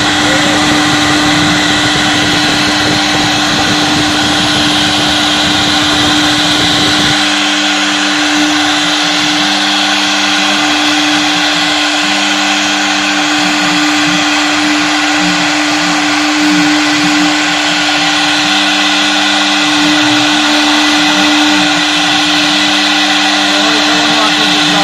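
CNC wood router's spindle running at a steady high whine while it cuts wood. A low rumble underneath stops about seven seconds in, and the whine carries on.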